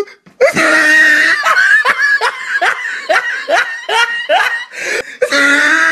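A person laughing hard: one long high 'haaa', then a fast run of 'ha' bursts, each falling in pitch, and another drawn-out laugh near the end.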